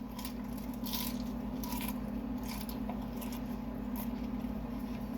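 Close-miked chewing and wet mouth sounds of someone eating, with a few brief crackly clicks in the first half, over a steady low hum.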